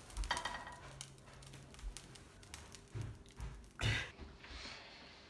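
A few knocks and scrapes of a metal spatula on a stovetop griddle, the loudest about four seconds in, over faint sizzling of food frying.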